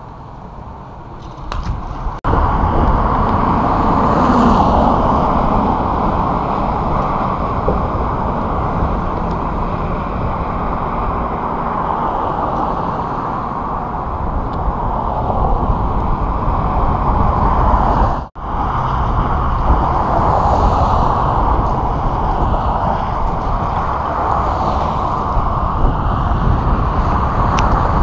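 Strong wind buffeting the microphone: a loud, steady rushing that sets in about two seconds in and breaks off for a moment about two-thirds of the way through.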